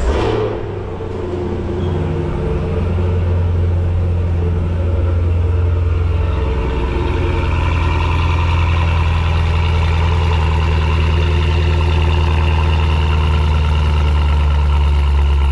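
Cadillac CT5-V Blackwing's supercharged 6.2-litre V8 starting up. It fires with a brief loud flare, drops back about a second in, then settles into a steady, low idle.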